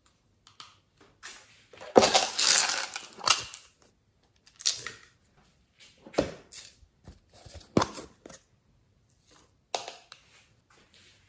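Small plastic glitter containers and their lids being handled, tapped and set down, giving a few sharp clicks and knocks spaced a second or two apart. A longer rustling clatter about two seconds in is the loudest part.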